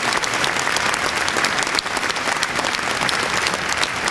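A large crowd applauding: a dense, even clatter of many hands clapping at once.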